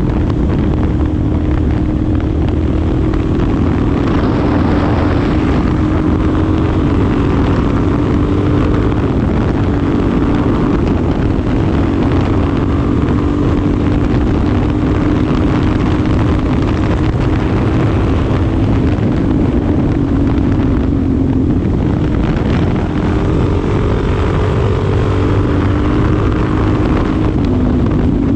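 2025 Suzuki DR-Z4SM's single-cylinder engine running while the bike is ridden, its pitch rising and falling gently with changes in throttle and speed.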